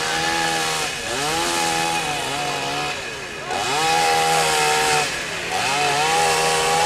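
Chainsaw revved in repeated bursts: about three times the engine climbs quickly to full throttle, holds for a second or so, then drops back.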